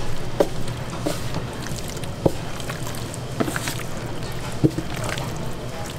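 Wet squelching of marinated pork being kneaded and turned by a gloved hand in a plastic tub, with a few short wet smacks, over a steady low hum.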